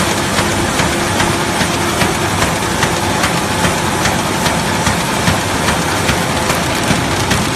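QFD-330 kraft paper bag machine running at speed: a steady mechanical din with a regular knock repeating about two and a half times a second.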